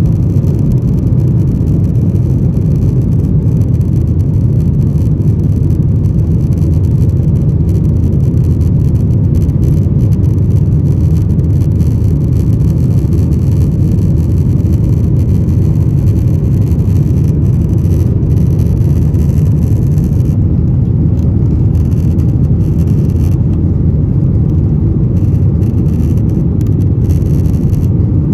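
Boeing 737-900ER cabin noise from inside the economy cabin: a steady, loud low rumble of the CFM56 jet engines and airflow.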